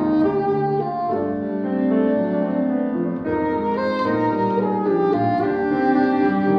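A bassoon playing a melody of held notes over grand piano accompaniment.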